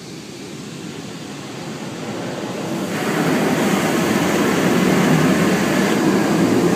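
Automatic car wash working over the car, heard from inside the cabin: a rush of spraying and washing noise that builds and grows sharply louder about three seconds in.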